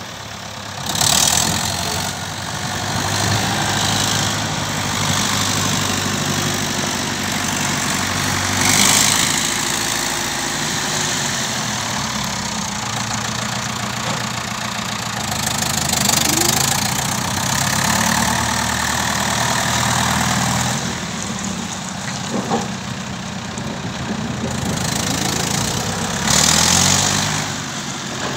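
David Brown 990 tractor's four-cylinder diesel engine running as the tractor is driven, with the engine speed rising and falling a few times.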